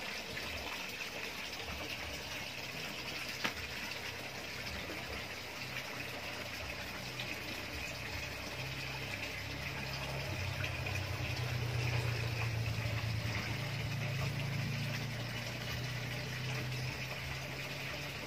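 Steady water bubbling from an aquarium air line and air stone aerating a goldfish pond. A low hum swells in the middle and fades again.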